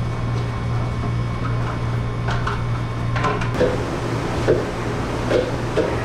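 Dishes and plastic dish racks clattering and knocking as they are handled, with scattered sharp knocks from about two seconds in. Under them runs a steady low hum of commercial kitchen machinery.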